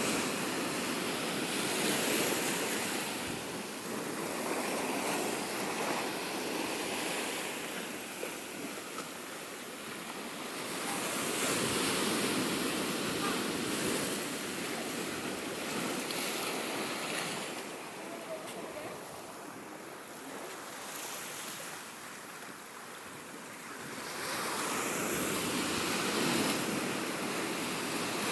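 Ocean waves washing in and out along the shore, the surf swelling and easing in slow surges every several seconds, with breeze buffeting the microphone.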